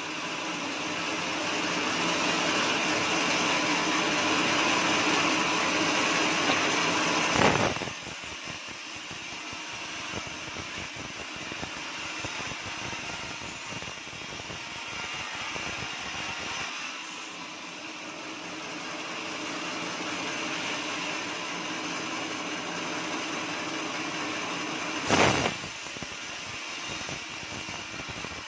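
Band sawmill running and cutting through a teak beam, a steady machine noise that swells during the first seven seconds of the cut. A sharp knock about seven seconds in and another near the end, with the mill running lighter between them.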